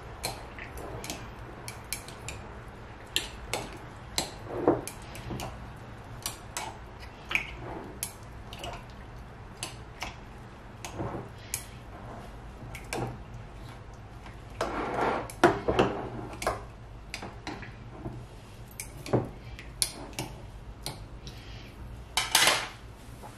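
A wooden stick tapping and scraping against the glass of mason jars packed with roasted green peppers as trapped air is worked out, with the jars clinking against each other and the counter as they are handled. The irregular light clicks and knocks come in a denser run a little past the middle, with one loud knock near the end.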